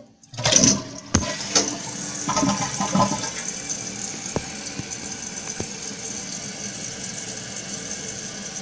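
A 2014 Kohler Wellworth toilet tank flushing. It starts with a clunk and a click, then water rushes out loudly for about three seconds. That settles into a steady hiss as the tank refills.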